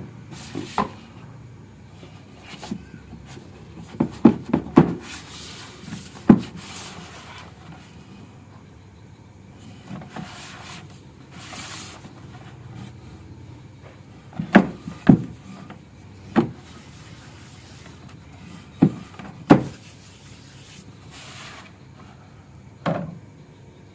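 Wooden pieces knocking together in sharp taps at irregular intervals, often two or three in quick succession, with stretches of wood rubbing and scraping in between.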